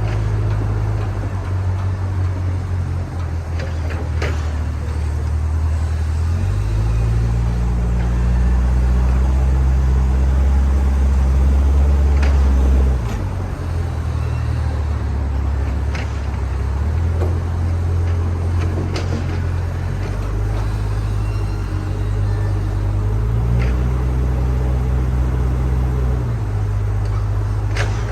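Backhoe loader's diesel engine running, its speed stepping up and down several times as the machine works, with a few sharp clanks.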